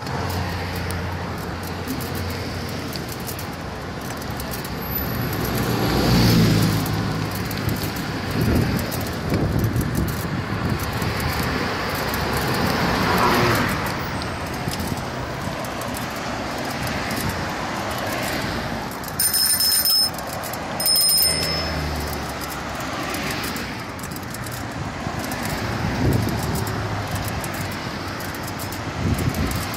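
Road traffic on a wide city street: cars passing with a steady rush of tyre and wind noise that swells as vehicles go by, about six and thirteen seconds in. About two-thirds of the way through come two short, loud, high-pitched rings about a second apart.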